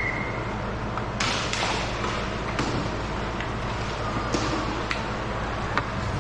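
Ice hockey play on the rink: short scrapes of skate blades on the ice, about a second in and again past the four-second mark, and scattered sharp clacks of sticks and puck, over a steady low hum of the arena.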